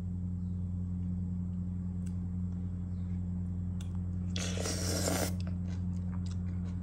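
A person eating instant curry noodles: faint chewing and small clicks, with one short rushing noise lasting about a second, about four and a half seconds in, over a steady low hum.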